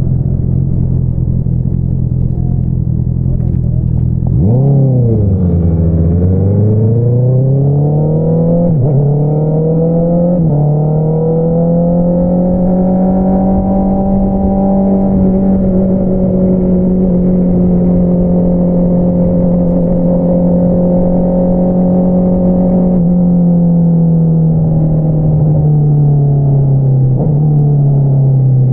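2022 Honda CBR650R's inline-four engine through an Akrapovič single-outlet exhaust: a low steady note, then a quick rev about four seconds in, pulling away and rising in pitch through two quick upshifts around nine and ten seconds. It then holds a steady cruising note and eases off gradually, with another shift near the end.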